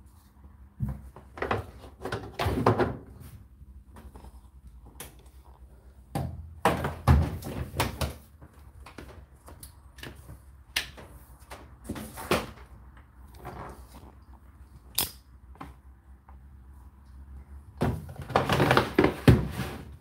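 Scattered knocks and thunks of hands working at an Indesit condenser tumble dryer whose drum has stopped: the door being shut and the mains plug being pulled from the wall socket, with a louder cluster of knocks near the end.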